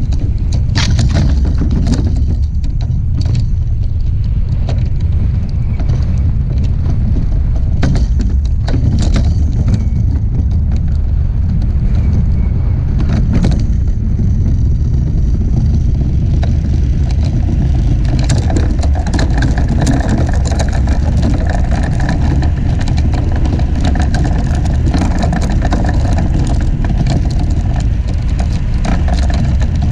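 DN iceboat at speed: a loud, steady low rumble of wind and steel runners on lake ice. Sharp clicks and cracks come through the first half, as the runners cross rough, snow-patched ice. About two-thirds of the way in, a steadier higher hum joins the rumble.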